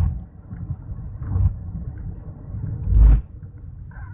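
Low rumble of a vehicle on the move, with three heavier low thumps about a second and a half apart, the loudest about three seconds in.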